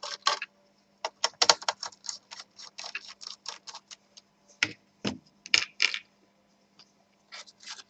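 Small screwdriver clicking on the screws that hold a laptop's CPU cooler as they are undone: a quick run of small clicks, then a few louder knocks of small metal parts around the middle.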